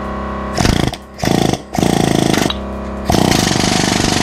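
Pneumatic air rivet gun hammering a solid rivet into aluminium sheet against a bucking bar, in four bursts of rapid blows. The last burst is the longest, almost two seconds.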